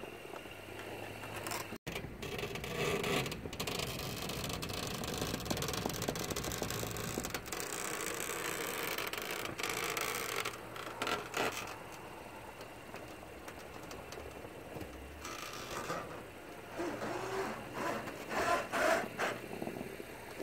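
Wooden hitch-mounted snow plow blade scraping and pushing snow across a driveway as a Honda Ridgeline reverses, its engine running underneath, with louder bursts of scraping near the end.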